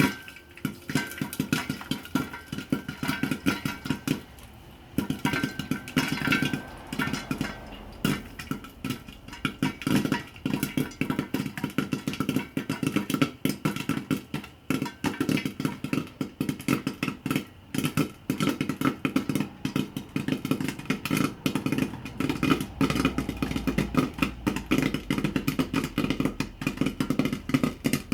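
Popcorn kernels popping in earnest in hot oil inside a lidded pot on the stove: a dense, rapid crackle of pops, briefly thinning about four seconds in.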